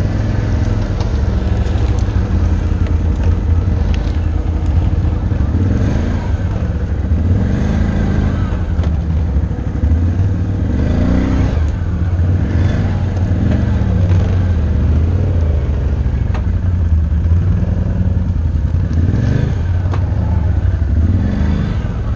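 Can-Am Outlander ATV engine running under load on a rough trail, its revs rising and falling repeatedly, with short clattering knocks from the machine jolting over bumps.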